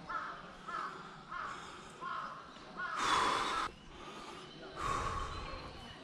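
Crow cawing: four short caws about two-thirds of a second apart, then two longer, louder, harsher caws about three and five seconds in.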